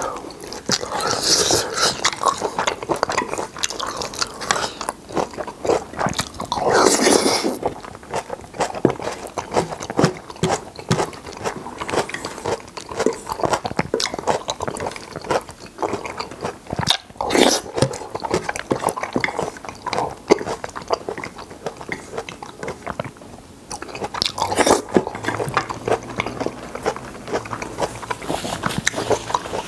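Close-miked chewing and mouth noises of a man eating a mouthful of seafood jjajang (black bean sauce) meat and vegetables, steady smacking and clicking with a few louder stretches.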